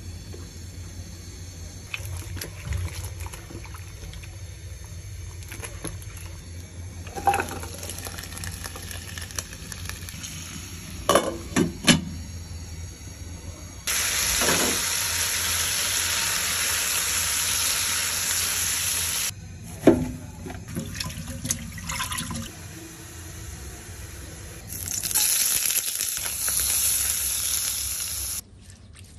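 Food frying in hot oil in a pan: two long stretches of steady sizzling, one about halfway through and one near the end, each cutting off sharply. Between them come knocks and clatters of cooking utensils.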